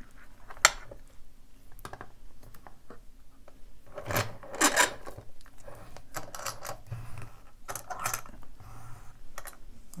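Clicks, clinks and knocks of a brass lock cylinder being handled and clamped into a small plastic bench vise with a metal screw, with a sharp click just under a second in and a run of clatter around four to five seconds in.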